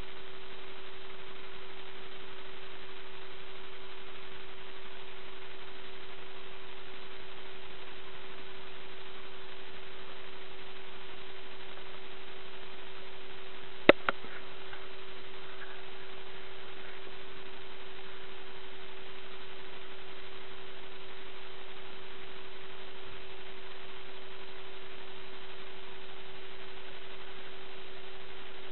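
A steady hum at one unchanging pitch over constant hiss, broken about halfway through by a sharp click and a fainter second click just after.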